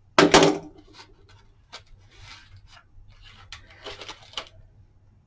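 Handling noise from an old, brittle parchment lampshade as its dried lacing is worked loose: a short louder rustle just after the start, then faint scattered crackles and rubbing.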